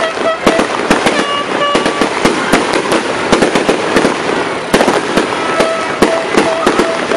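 Aerial fireworks going off in a dense, continuous barrage of bangs over crackling, with one especially sharp bang about two-thirds of the way through.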